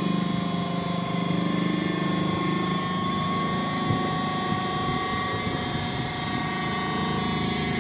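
Steady mechanical whirring with constant high whining tones: a brushless motor spinning a 3D-printed electromagnetic generator, which drives a Hatari electric stand fan running at speed.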